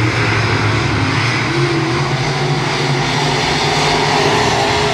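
A pack of dirt-track race cars circling a clay oval, their engines running loud and steady, the pitch wavering slightly as they go around.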